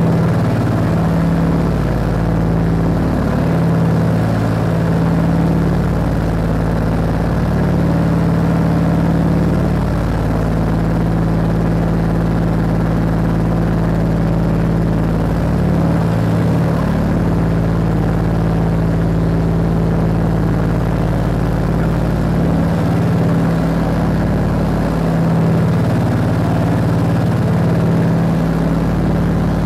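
Steady drone of the Scottish Aviation Twin Pioneer's two Alvis Leonides radial engines and propellers in flight, heard inside the cabin as a loud, even hum.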